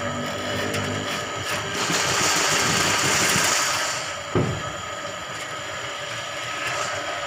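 Motor-driven drain-cleaning machine running, its spinning spring-coil cable churning the water in a clogged drain pit while clearing the blockage. The noise grows louder and rougher for a couple of seconds from about two seconds in, and there is a single sharp knock about four seconds in.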